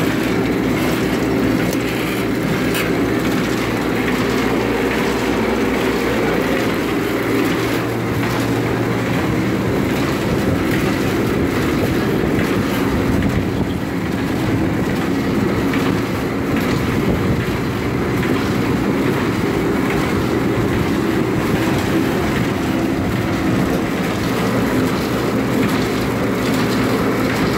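Vertical popcorn packing machine with a rotating cup filler running steadily: a continuous mechanical hum and clatter. A low steady tone in it drops away about seven seconds in and comes back near the end.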